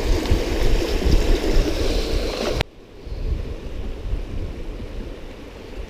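Wind buffeting the microphone: a steady low rumble with a hiss above it. It drops suddenly to a quieter rumble about two and a half seconds in.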